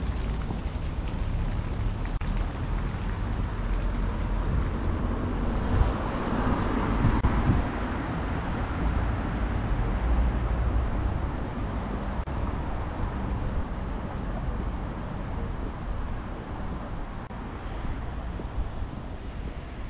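Wind buffeting the microphone over outdoor street traffic noise, swelling louder about six to eight seconds in.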